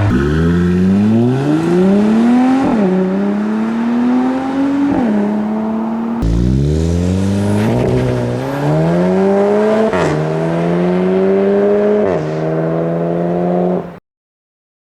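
A car's engine and exhaust under hard acceleration through the gears: the note rises steadily and drops back at each upshift, in two pulls of several gears each. It cuts off suddenly near the end.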